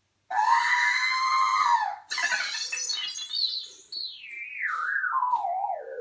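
R2-D2 droid sound effects played through a home-built R2-D2 replica's newly fitted audio system: a wavering tone that rises and falls, a quick burst of chirps, then a long warbling whistle that slides steadily down in pitch.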